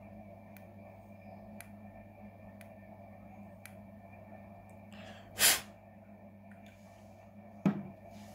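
A short, loud puff of breath about five and a half seconds in, then a sharp knock as the e-cigarette is set down on the table near the end. Faint ticks about once a second sit over a steady low hum.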